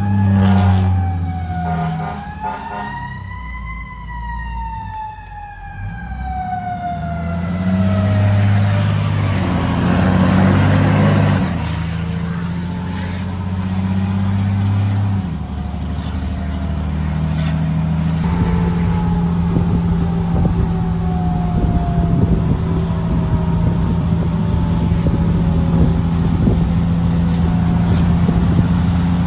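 Fire truck siren wailing, its pitch climbing to a peak about four seconds in and then sliding slowly down. A heavy truck engine runs underneath, swelling as the truck passes and then holding steady and rattling through the second half.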